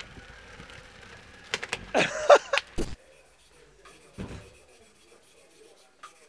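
A brief loud shout from a man's voice, lasting about a second and ending abruptly with a cut, followed by a quiet room with a faint knock or two.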